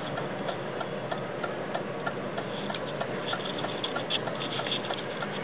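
Car's turn-signal indicator ticking at an even pace, about two to three clicks a second, over the steady low noise of the car's cabin.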